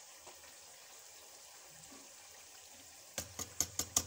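Quiet kitchen room tone, then near the end a quick run of sharp taps: a kitchen utensil rapping against a dish, several times a second, as chutney is knocked out into the raita.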